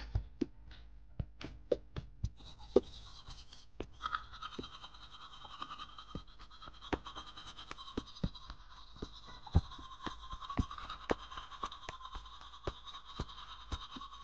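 A few sharp taps, then from about four seconds in a toothbrush brushing teeth: a steady brushing sound with small irregular clicks through it.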